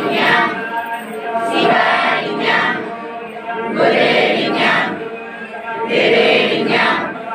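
A group of worshippers chanting a devotional prayer together in unison, in short repeated phrases about every two seconds.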